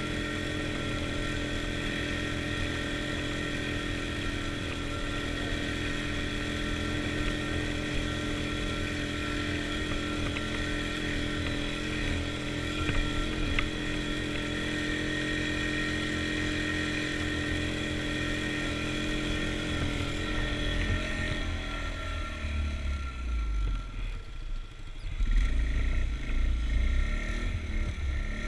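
Snowmobile engine running at a steady speed while the sled travels along a snow trail. About 22 seconds in the engine note drops back and uneven low thuds come up for the last few seconds.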